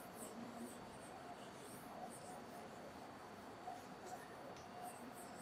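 Handheld whiteboard eraser wiping across a whiteboard in faint, repeated rubbing strokes.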